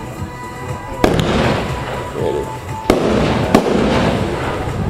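Consumer aerial fireworks going off: a sharp bang about a second in, another near three seconds and a third soon after, each followed by a dense, lingering crackle.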